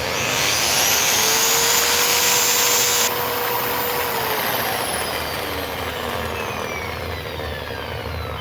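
Electric putty mixer's brushed motor spinning up to speed with a loud whir, running for about three seconds, then switched off and winding down with slowly falling pitch. The machine makes excessive noise, the fault it was brought in to have repaired.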